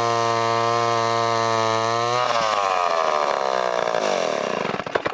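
Homelite C-7 vintage 80.5 cc two-stroke chainsaw running steadily at high speed. About two seconds in, its pitch falls away as the engine winds down, and it stops near the end.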